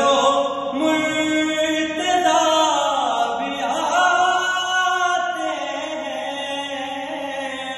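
Man singing a manqabat, an Urdu devotional praise poem, in long held notes that glide and waver in pitch, with no percussion.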